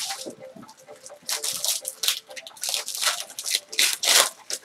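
Foil wrappers of football trading-card packs crinkling and tearing as packs are ripped open by hand, in a quick run of sharp rustling bursts.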